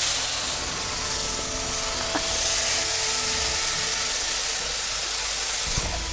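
Cubes of Adyghe cheese sizzling steadily in a hot frying pan.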